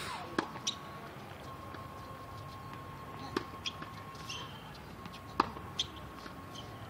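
Tennis balls struck with a racket during backhand practice on a hard court: three sharp pops two to three seconds apart, each followed by lighter clicks.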